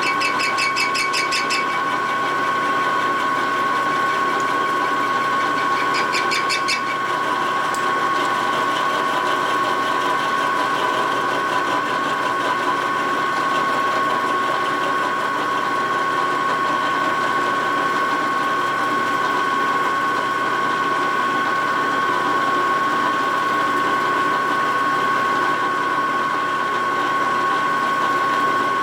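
Vertical milling machine spindle running with a steady high whine while an end mill cuts the inside wall of a welded aluminium Harley-Davidson Knucklehead crankcase, fed around on a rotary table. Brief rapid ticking comes at the start and again around six seconds in.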